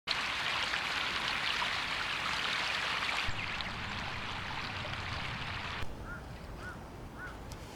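Steady rushing noise, in the manner of flowing water or wind, thinning abruptly about three seconds in and again about six seconds in. Near the end a bird calls four times, about half a second apart.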